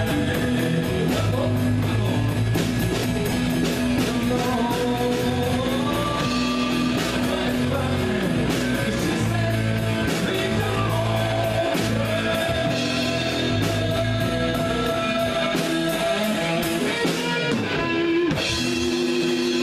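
Live rock band playing: electric guitars with bends and held notes over a drum kit, with a singing voice.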